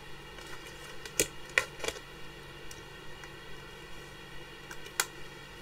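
A few sharp clicks and taps from pens and craft tools handled on a desk, four of them standing out, over a steady faint hum.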